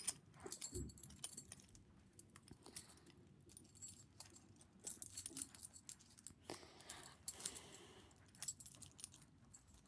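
Keys jangling and small metallic clicks as a Blue Spot 50 mm padlock is handled and worked with its key. The clicks are light and scattered.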